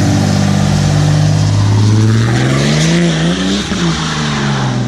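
Diesel pickup truck pulling away and accelerating, its loud engine note rising in pitch a couple of seconds in, then dropping back and levelling off.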